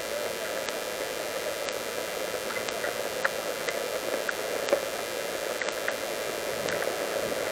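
Steady hiss-like background noise with faint ticks about once a second.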